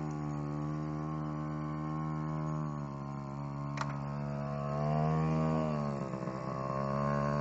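Small 50cc dirt bike engine running at low revs, its pitch dipping and picking back up a few times as the throttle is eased and opened. A single sharp click comes about four seconds in.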